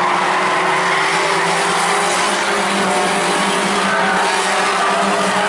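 A pack of compact stock cars racing past, several engines running at once in a steady, unbroken drone.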